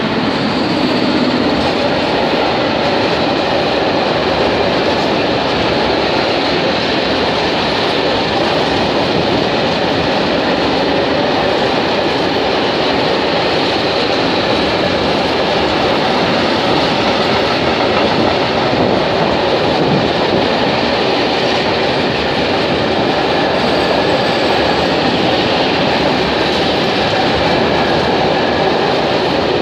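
A freight train of open coal wagons hauled by an ET41 twin-unit electric locomotive, passing close by. The locomotive's second unit goes by, then the wagons, making a loud, steady noise of wheels running on the rails.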